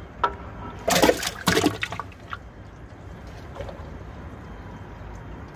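A water balloon dropped into the water of a toilet bowl: two loud splashes, about a second in and again half a second later, then only a low steady background.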